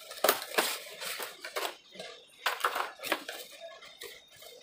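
A cardboard box being opened and its clear plastic tray slid out, making a quick run of crackles and scrapes with several sharp strokes.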